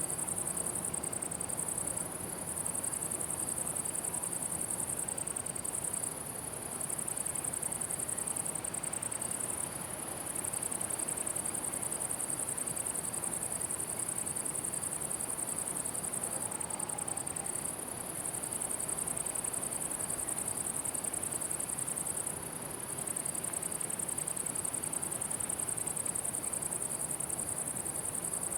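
Crickets in a summer meadow chirring in a continuous high-pitched buzz that breaks off briefly every few seconds.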